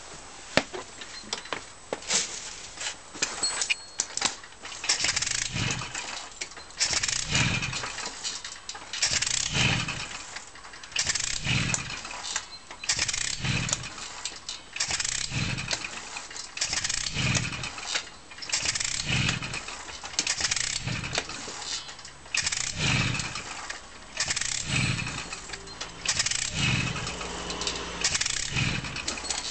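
Zündapp Typ 442-17 moped's 50 cc two-stroke engine being turned over by pedalling, about one surge every two seconds, without starting. It is a starting fault that the owner dates from filling up with new petrol.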